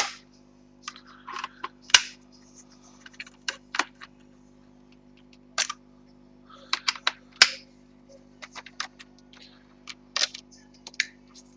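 Irregular sharp clicks and clacks of a mechanical keyboard's plastic case being handled while its bottom screws are undone with a screwdriver, with a few short scrapes, over a faint steady hum.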